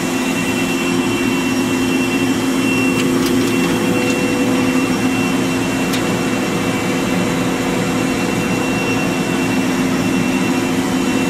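Powered-up Bystronic CO2 laser source (BTL2800 Turbo) running: a steady machinery hum with a high, even whine over it, from the resonator's turbo blower and its pumps.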